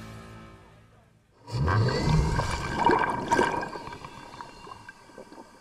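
Music fades out. About a second and a half in, a sudden rushing, water-like noise with a low rumble that swells and falls starts up and dies away over the next few seconds.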